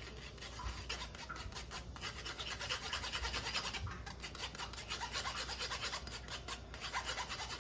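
Egg yolks being beaten by hand in a bowl: quick, rhythmic scraping strokes of the utensil against the bowl.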